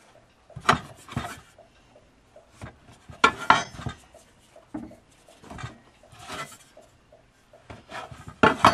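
Irregular knocks and clatters of a metal blade on a wooden cutting board, with the soft rubbing of hands shaping tortilla dough into balls; the loudest knocks come about a second in, near the middle and near the end.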